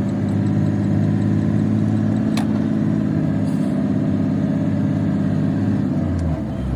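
Truck engine running steadily, its note dropping lower about six seconds in. A single short click sounds about two and a half seconds in.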